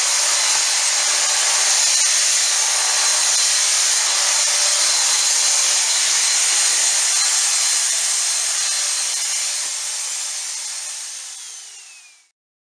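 Von Haus 1000W stick vacuum cleaner running: a steady hiss of airflow with a high motor whine as its floor brush is pushed across the floor. Near the end the whine falls in pitch and the sound fades away.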